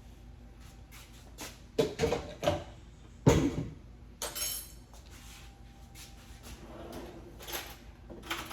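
Kitchen utensils and cookware knocking and clinking while food is served onto a plate: a run of sharp clatters, the loudest about three seconds in, one followed by a brief metallic ring, then lighter handling sounds.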